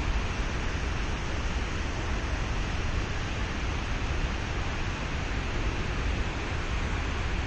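Steady wind rushing over the microphone, with a heavy, uneven low rumble from buffeting.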